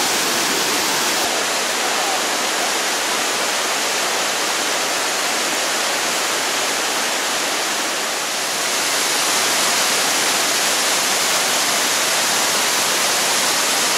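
Waterfall rushing, a loud steady roar of falling water that dips slightly about eight seconds in and then comes back a little louder.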